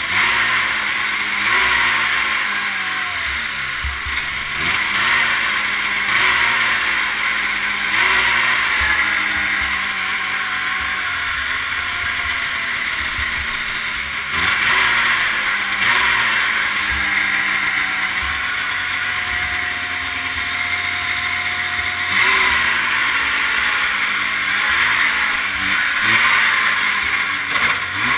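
1978 Ski-Doo Everest 440's two-stroke engine running on a cold start, its throttle blipped again and again so the revs jump and sink back, with one longer slow fall in the middle. The engine is running rough and keeps fouling spark plugs, for a reason the owner has not yet found.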